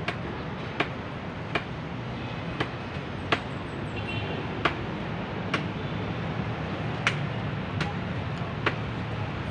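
Footsteps of a person walking on pavement, a sharp tap roughly once a second, over a steady low hum of city traffic.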